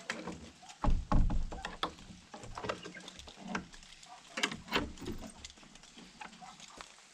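Wooden plank door of a log hut being latched and locked: heavy knocks of the door and hasp against the wood about a second in, then lighter metal clicks and rattles of the hasp, lock and keys.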